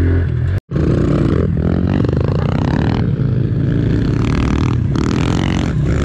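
Honda CRF110 pit bike's small single-cylinder four-stroke engine running under throttle while riding, its pitch rising and falling through the track. The sound drops out completely for a split second just after half a second in.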